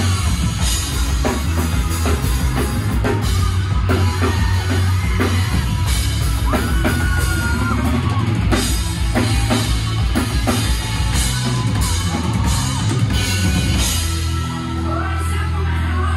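Rock band playing live: a drum kit pounds a driving beat under electric guitars and bass. Near the end the drumming drops back, leaving held low notes ringing.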